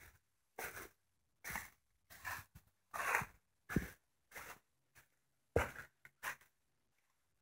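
Footsteps crunching through dry fallen leaves, a little under two steps a second.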